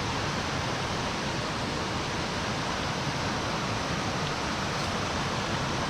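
Steady rushing of a mountain stream: an even, unbroken water noise.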